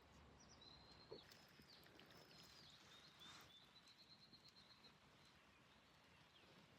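Faint, distant bird song: thin high whistled notes with bends, then a quick run of short repeated notes about four seconds in, over a quiet outdoor background.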